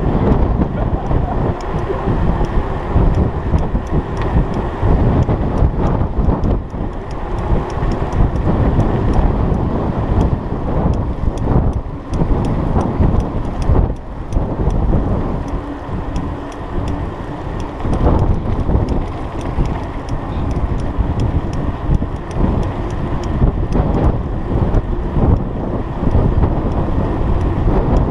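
Wind rushing over the microphone of a rider's camera on a moving mountain bike, a loud, gusting low rumble mixed with tyre noise on the paved road.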